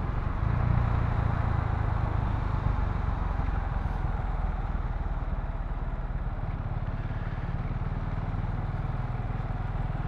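KTM Duke 690's single-cylinder engine running as the motorcycle is ridden, a little louder for the first few seconds, then settling into a steady, lower note.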